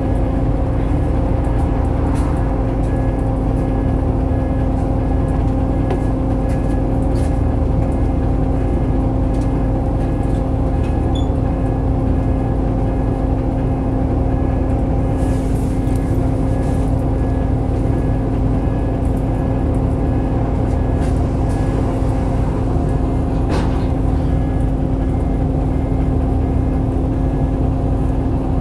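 Scania L94UB city bus running at a steady speed: a constant diesel engine drone with the steady whine of its loud ZF automatic gearbox. A few light clicks or rattles come through now and then.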